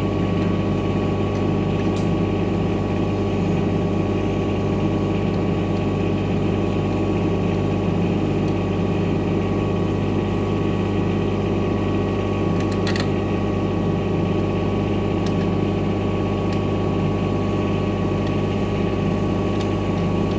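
Shindaiwa DGW280DMII diesel engine welder-generator running steadily, with an even, unchanging engine note.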